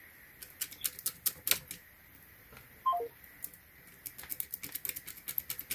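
Metal lock-pick tool clicking in the keyway of a Club steering wheel lock as it is worked and jiggled: light, irregular clicks, sparse at first, then a quicker run over the last couple of seconds.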